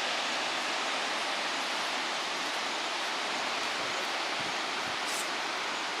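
Steady rush of a tall waterfall plunging into its pool, with the muddy river rushing through the gorge below.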